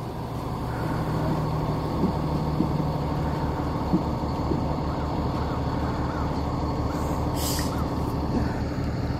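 School bus diesel engine idling with a steady low throb, the bus stopped with its door open. About seven and a half seconds in there is a short hiss of released air.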